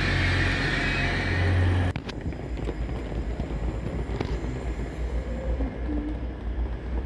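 Grand Central Class 180 diesel multiple unit running with a loud, deep engine hum. About two seconds in the sound drops suddenly to a quieter, more distant low rumble of the train.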